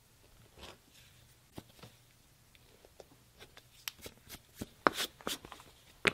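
A tight-corner leather edger scraping lightly along the edge of a holster's slot, then a few sharp clicks of hand tools being set down and picked up on a workbench, the loudest about five seconds in.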